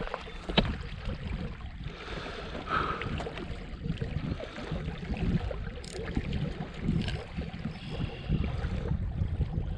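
A hooked carp splashing at the surface of a creek close to the bank, over wind buffeting the microphone. A sharp click sounds about half a second in.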